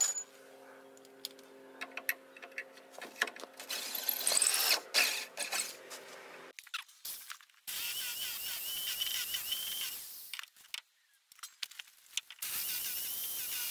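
Corded Bosch hammer drill running in two bursts of a few seconds each, drilling at a steel post base set on a concrete footing. Before them come clicks, scrapes and a faint steady hum.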